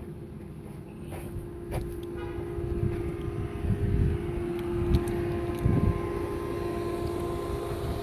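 A steady mechanical hum, with irregular low rumbles of wind or handling on a phone's microphone, heard as an outdoor phone recording played back.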